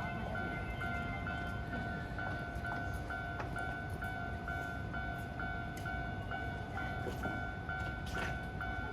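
Japanese railway level-crossing warning bell ringing, an even electronic ding repeating about twice a second, over a steady hiss of rain.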